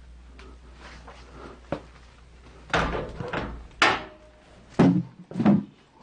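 A run of about five knocks and thumps, like things or a cupboard door being bumped and handled, starting about three seconds in.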